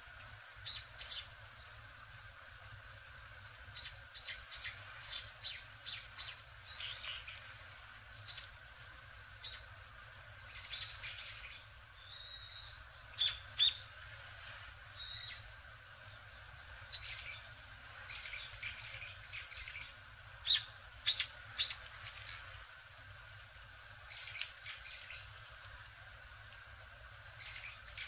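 Small songbirds calling: many short, high chirps scattered throughout, with a few louder, sharp calls around halfway and again about three quarters of the way through.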